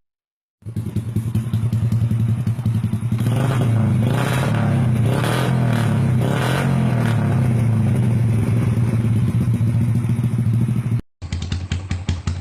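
Motorcycle with an aftermarket exhaust pipe idling with a deep, steady note, revved in several quick throttle blips a few seconds in before settling back. Near the end it cuts to another idling engine.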